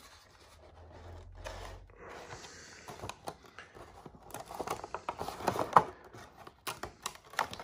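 Clear plastic blister tray and bag being handled, crinkling and crackling in irregular bursts with sharp clicks, starting about two seconds in.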